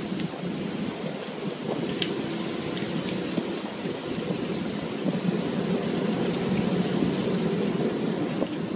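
Steady rush and splash of sea water around a seine net's float line packed with small fish, with a rain-like patter and scattered light ticks.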